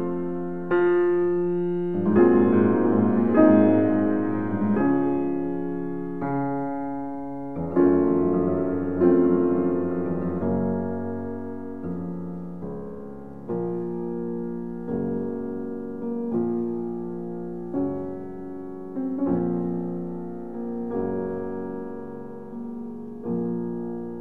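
Slow solo piano background music, with notes and chords struck about every second or two and left to fade.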